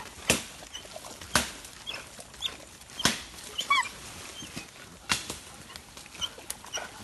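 Hunting dogs digging and scrabbling at a manicou (opossum) burrow in dirt and dry leaves: scattered scratches and knocks, with a short high whine about three and a half seconds in.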